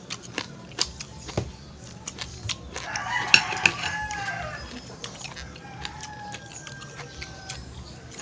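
A rooster crows about three seconds in, one drawn-out call that bends down at the end, and a fainter call follows. Small clicks and taps of clam shells and a fork on a plate run throughout.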